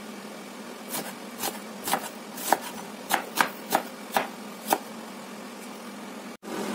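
Chef's knife chopping a peeled onion on a wooden cutting board: about ten sharp, irregular knocks of the blade striking the board over a few seconds.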